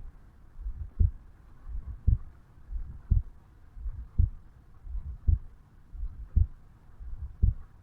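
A resting human heartbeat heard at the mitral valve area of the chest: slow, regular lub-dub beats a little under one a second, each a soft low thud followed by a sharper, louder one.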